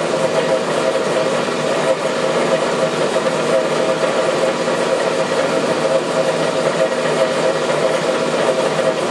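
Steady rushing hiss of a glassworking burner flame playing on the end of a spinning glass tube on a glass lathe, fire-polishing it, with a steady machine hum under it.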